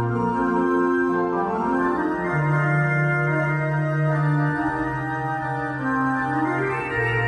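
Church pipe organ playing slow French Baroque music: sustained chords over a low held note that steps to a new pitch a few times, with an ornamented melody line moving in the middle register.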